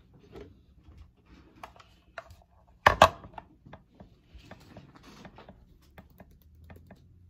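Kitchen items being handled on a countertop: scattered light clicks and taps, with two sharp knocks close together about three seconds in.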